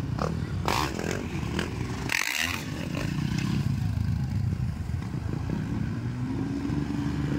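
Motocross dirt bike engine revving as it rides through mud, with a short break in the engine note about two seconds in, then pulling on with the pitch rising near the end.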